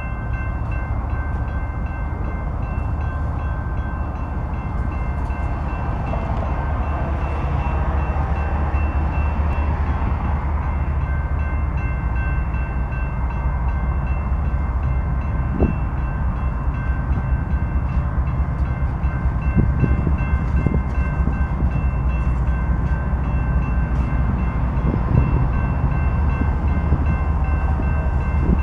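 Railroad grade-crossing bells ringing in a steady repeating pattern while the crossing signals are active, over a constant low rumble that grows a little louder.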